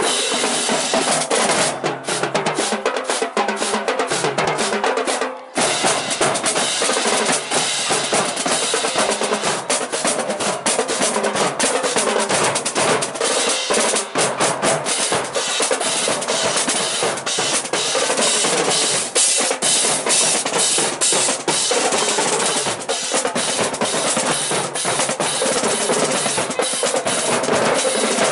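Marching drumline playing a fast cadence on snare drums and other marching drums, with dense strokes and rolls. There is a short break about five and a half seconds in.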